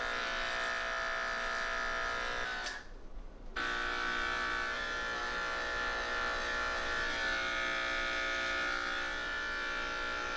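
Electric pet clipper running steadily with an even motor hum while clipping a long-haired cat's coat. The hum stops for about a second around three seconds in, then starts again.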